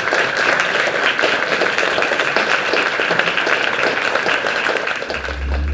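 Audience applauding, a dense steady clapping that fades out just before the end, as music with a low bass begins.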